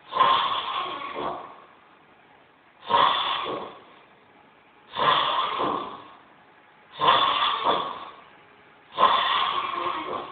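Loud snoring: five snores about two seconds apart, each starting abruptly and fading away over about a second.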